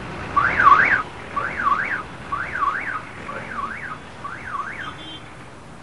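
A high warbling tone sliding up and down, like a car alarm, repeated five times about once a second and fading with each repeat.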